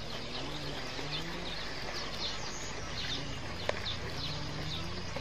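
Birds chirping steadily, short high calls coming several times a second, with a lower wavering call beneath them. A single sharp click cuts through about three and a half seconds in.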